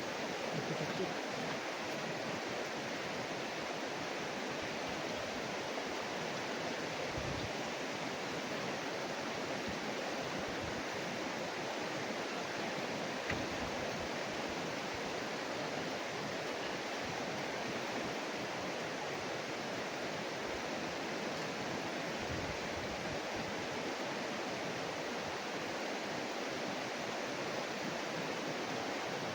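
River water rushing steadily in a fast current, the river running high after rain.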